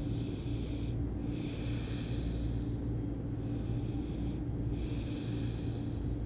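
A woman breathing audibly and evenly while resting, close to the microphone, about five in- and out-breaths each roughly a second long. A steady low hum runs underneath.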